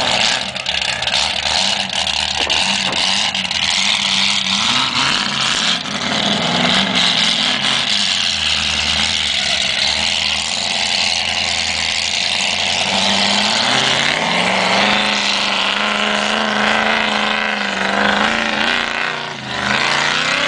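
Chevy big-block V8 in a Jeep running hard under load, revving up and down, then climbing to a higher steady pitch about two-thirds of the way through, with a short dip near the end.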